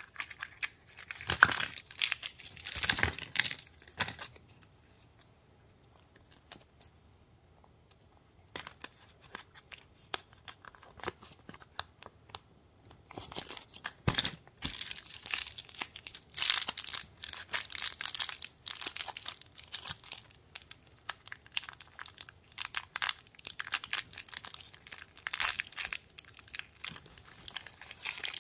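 Crinkling and tearing of thin plastic candy packaging as it is unwrapped by hand, with clicks from plastic toy-egg capsules being handled. A burst of crackling comes first, then a few seconds of near quiet with scattered clicks, then steady crinkling and tearing from about halfway on.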